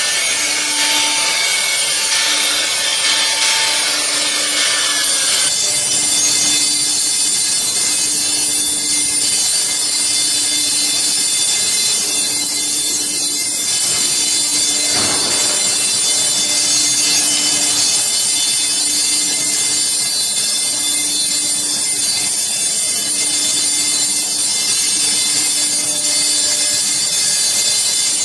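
CNC router spindle cutting HPL laminate board, a coarse high cutting noise over a steady whine, until the cut stops abruptly about five seconds in. The machine's steady high whine and hum carry on after that.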